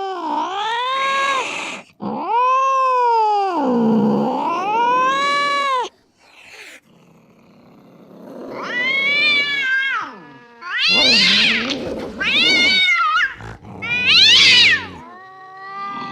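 Domestic cat yowling (caterwauling): long drawn-out yowls that swoop down and up in pitch, then after a short pause three shorter, louder, higher-pitched yowls in quick succession.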